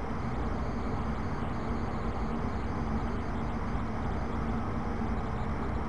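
Steady background room noise with a faint low hum, unchanging throughout.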